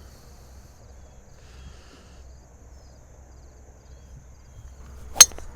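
Low steady rumble of road noise, then near the end a single sharp crack of a golf club striking the ball on a tee shot.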